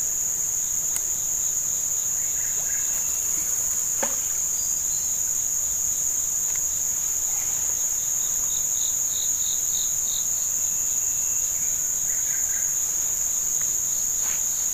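A dense chorus of insects: a steady, high-pitched drone at two pitches that never breaks.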